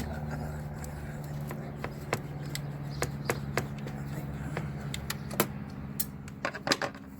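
Irregular metallic clicks and taps of hand tools, a flat screwdriver among them, prying and twisting at engine parts. A few louder knocks come near the end, over a steady low hum.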